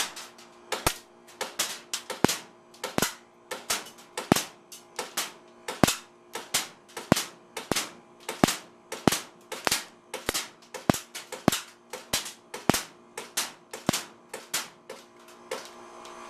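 3PX4 gas airsoft pistol firing shot after shot in a steady string, about two sharp pops a second, some louder than others.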